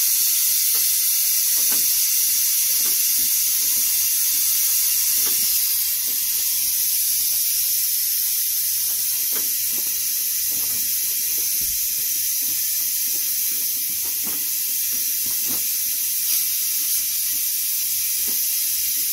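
Compressed air hissing steadily from an air compressor hose into a flat manure spreader tire while trying to seat its bead; the hiss eases slightly about six seconds in.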